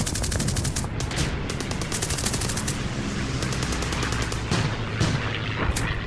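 Battle ambience sound effect: repeated bursts of rapid machine-gun fire, the first starting right at the opening and several more following, over a steady low rumble.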